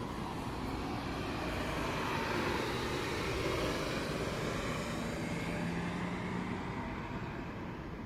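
Road traffic noise: a vehicle passing out of sight, swelling over the first few seconds and slowly fading toward the end.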